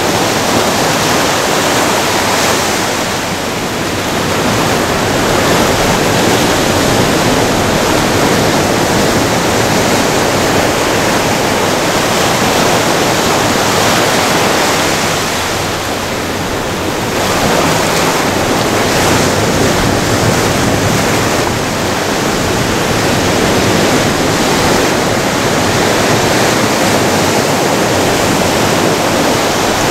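Ocean waves breaking and washing up a sandy shore, a loud, steady rushing that eases briefly twice, about 3 seconds in and about 16 seconds in.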